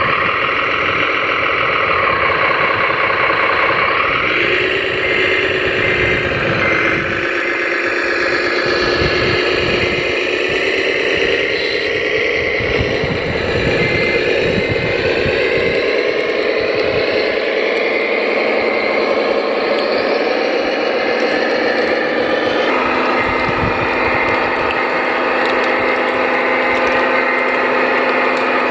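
Radio-controlled construction machines working, their drive motors and hydraulics whining in pitch that rises and falls, with scraping and rattling underneath. The sound changes abruptly about two-thirds of the way through.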